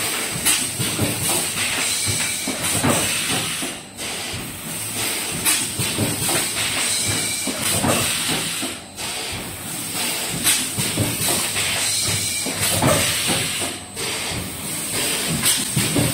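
Automatic paper-card blister packing machine running: pneumatic hissing and the clatter of its forming, cutting and sealing stations, with a brief lull about every five seconds as it cycles.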